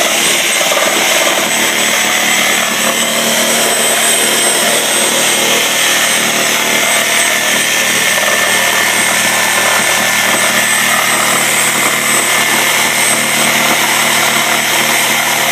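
Cordless reciprocating saw running steadily as its blade cuts through the bed of a pool table, a loud continuous buzz with a high whine over it.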